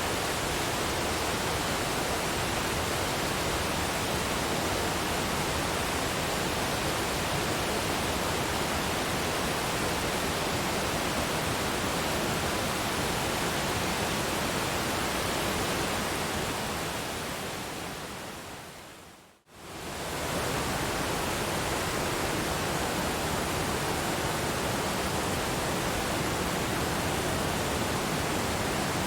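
Waterfall rushing as a steady, even wash of water noise. About two-thirds of the way through it fades away over a few seconds to near silence, then comes straight back at full level.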